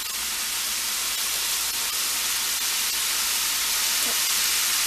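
Pot of dry lima beans and ham hock at a boil, giving a steady, even bubbling hiss.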